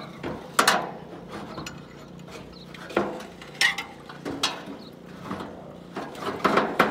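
Metal dock support poles and crossmember knocking and rattling against the aluminum dock frame as the support is fitted, a handful of separate clanks with a cluster near the end.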